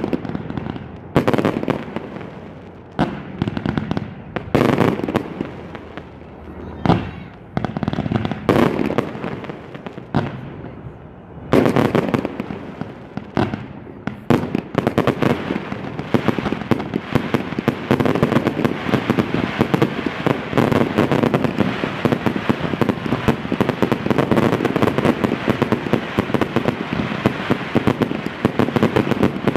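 Fireworks display with separate bangs of shells bursting and quieter gaps between them. About halfway through it becomes a dense, unbroken barrage of rapid bangs and crackling.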